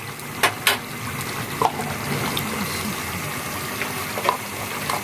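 Thick potato curry gravy simmering in a pan, bubbling steadily, with a few short, sharp pops as bubbles burst.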